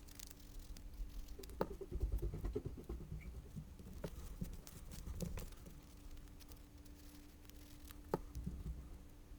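Paper and craft materials being handled on a work table: rustling, light taps and a few sharp knocks, with a cluster of rustling and thuds about two seconds in. A faint steady hum runs underneath.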